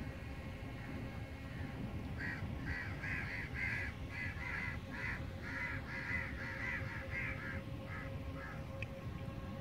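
A bird calling a run of about a dozen short repeated notes, roughly two a second, the last few fainter, over a steady low background rumble.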